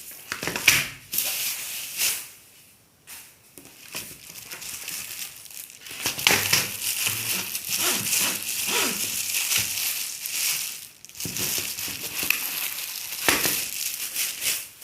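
Plastic packaging crinkling and rustling in irregular bursts as a keyboard's wrapping is pulled off, with brief pauses twice.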